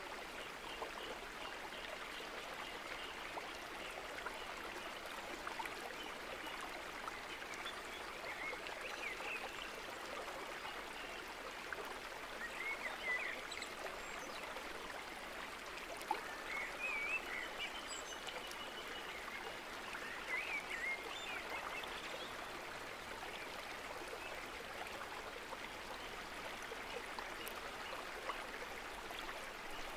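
Steady rushing noise like running water, with a few short chirps over it in the middle.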